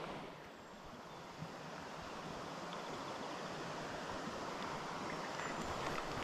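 Steady rush of a trout stream's flowing water, an even hiss that grows slowly louder.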